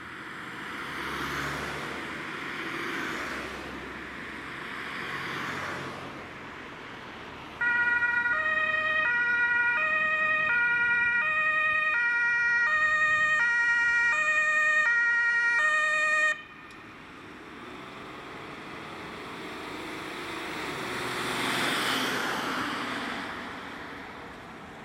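German ambulance's two-tone siren (Martinshorn) alternating between two pitches. It comes in abruptly about a third of the way in and cuts off sharply some nine seconds later. Before and after it, passing road traffic rises and falls in a rushing swell.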